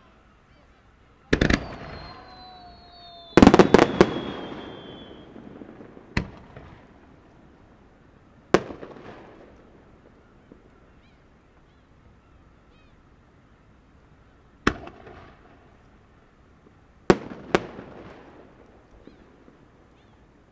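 Aerial firework shells bursting: about eight sharp bangs spread irregularly, the loudest a quick cluster of several about three and a half seconds in. Each bang trails off in a long echo.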